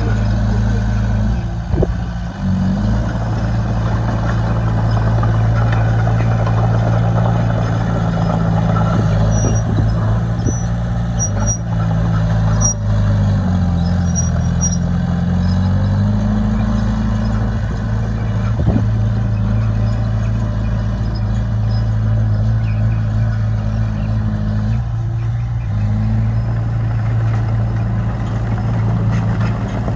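Heavy diesel engine of a crawler bulldozer running steadily under load. Its pitch sags about halfway through and then picks back up, as the engine lugs and recovers.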